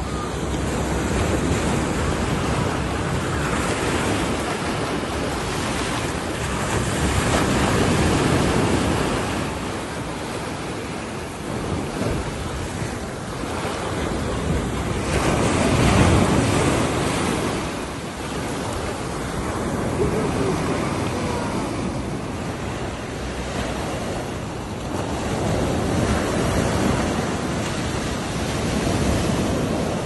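Sea surf breaking and washing up a sandy beach. The noise swells and falls back every few seconds, and the loudest break comes about halfway through.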